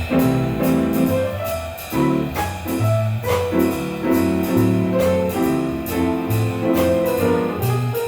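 A jazz trio of piano, bass and drum kit playing: piano chords and melody over a bass line, with cymbal strokes keeping a steady beat.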